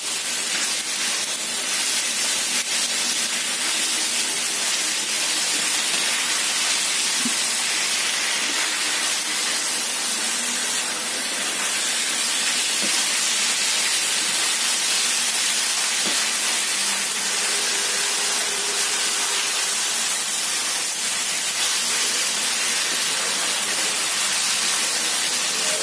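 Shredded cabbage and carrot sizzling with a steady hiss in a hot wok as they are stir-fried with a spatula, with a few light knocks of the spatula against the pan.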